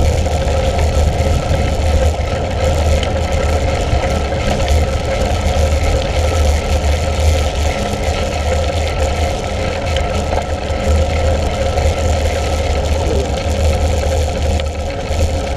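Steady rumbling ride noise of a mountain bike on a dirt track: tyres rolling over the packed earth and wind buffeting the action camera's microphone.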